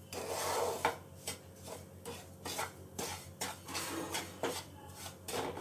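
Wooden spatula scraping and stirring semolina roasted in ghee around a nonstick frying pan, in quick repeated strokes, about two or three a second.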